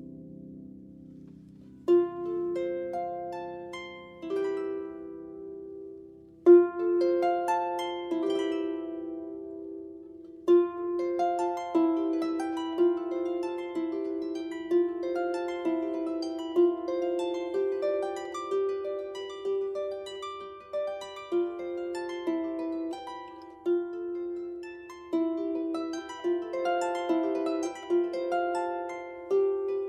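Solo harp played slowly, single plucked notes ringing on over one another. The first notes come about two seconds in, and after a short lull the playing grows fuller from about six and a half seconds on.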